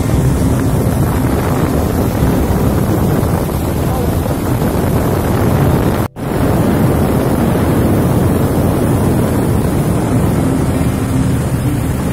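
Long-tail mud motor running at speed, pushing a flat-bottomed boat upriver, with steady engine hum, water spray and wind on the microphone. The sound cuts out for a moment about halfway through.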